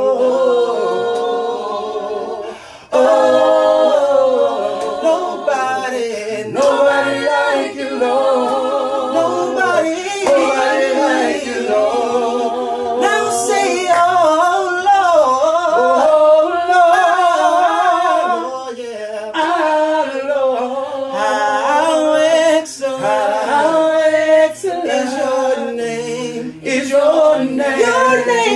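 A small group of voices singing a gospel song a cappella, with held notes that waver and sliding melodic runs.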